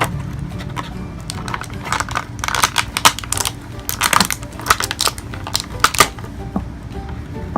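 Plastic toy packaging crinkling and crackling in quick irregular snaps as the action figures are taken out of it, densest in the middle, over quiet background music.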